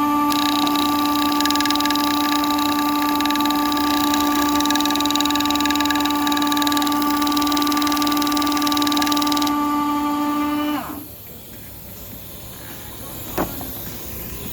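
A motor-driven machine running with a steady whine, then winding down in pitch and stopping about eleven seconds in. A single sharp click follows a couple of seconds later over a low hiss.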